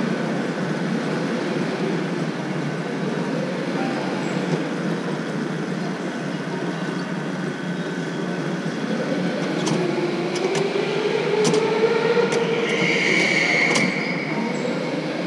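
Electric go-kart rolling on an indoor track: a steady rush of motor, tyres and wind, then a motor whine that rises and falls as the kart slows and pulls up behind the parked karts, with several sharp clicks near the end.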